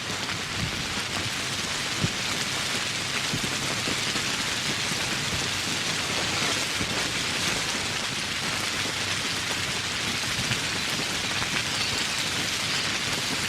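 Steady rain falling, with many individual drops pattering close by on surfaces and one sharper drop hit about two seconds in.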